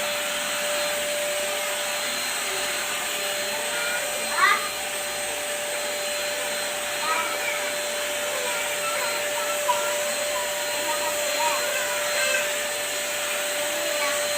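Deerma DX700 handheld vacuum cleaner running steadily, a constant hiss with a steady whine. About four seconds in there is a brief rising squeal.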